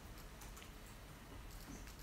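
Faint room tone with a few soft, scattered clicks from a laptop being worked.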